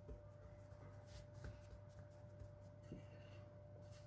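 Near silence: faint soft taps and brushing of hands pressing and stretching a ball of floured dough on a granite countertop, over a faint steady hum.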